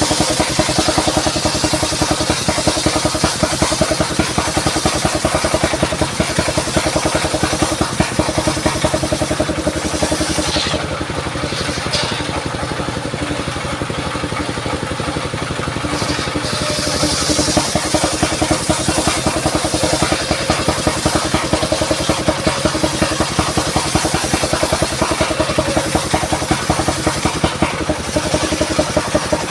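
Engine of a mobile circular sawmill running steadily with fast, even firing beats. A high hiss from the blade cutting mahogany comes and goes, dropping away for a few seconds in the middle.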